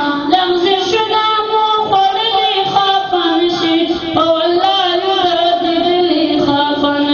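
A single high voice singing unaccompanied, holding long notes that waver and slide between pitches, in the style of a devotional nasheed.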